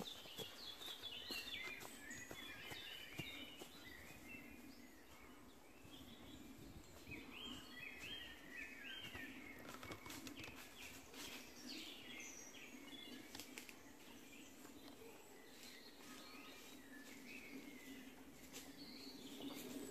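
Faint birdsong from several woodland birds, short chirping phrases throughout, with scattered sharp clicks.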